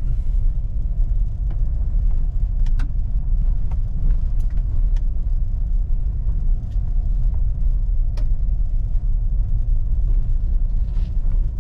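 Truck driving along the road: a steady low rumble of engine and road noise, with a few light clicks scattered through it.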